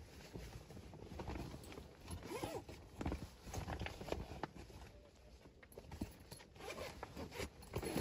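Wood fire crackling and popping irregularly inside a small sheet-metal camp stove.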